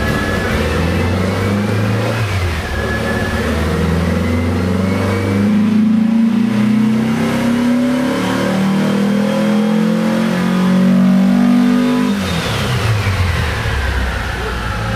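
VW dune buggy's engine running under load on a chassis dyno: the revs dip briefly about two and a half seconds in, then climb steadily in a long pull. About twelve seconds in the revs drop sharply as the throttle comes off, and a high whine falls away as the rollers spin down.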